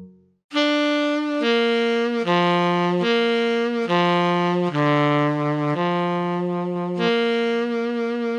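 Casio Casiotone LK-520 electronic keyboard playing its solo tenor saxophone tone (tone 235): a slow phrase of sustained notes that changes about once a second. It starts after a held note in the keyboard's nylon-string guitar tone dies away and a short gap follows.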